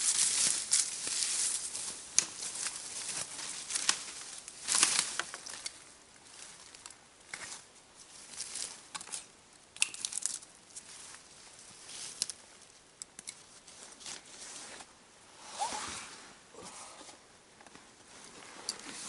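Footsteps and rustling through leafy undergrowth, leaves and twigs brushing and crackling, as a person walks and clambers over a fallen pine trunk. The rustles come in irregular bursts, loudest in the first few seconds, with the handling of a backpack near the end.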